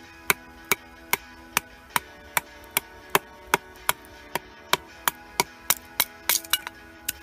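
Wooden baton striking the spine of a Nieto Chaman Bushcraft knife to split a wooden stake lengthwise: sharp knocks at a steady pace of about two and a half a second, quickening into a quick cluster near the end. Faint background music with held notes underneath.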